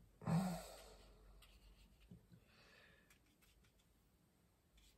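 A short sigh about a quarter of a second in. Then a near-quiet small room, with a few faint ticks and a soft faint rustle about three seconds in.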